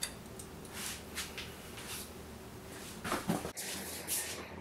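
Scattered light clicks and knocks of hands handling engine parts, feeding the cam chain up through the cylinder and head during an ATV top-end rebuild, with a short cluster of sounds about three seconds in.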